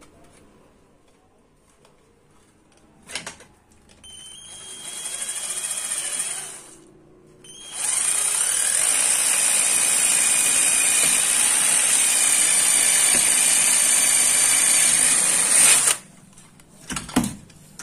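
Cordless drill with a step drill bit boring a hole through an emergency light's plastic housing: a short run about four seconds in, a brief pause, then a longer steady run of about eight seconds with a high whine, which cuts off near the end.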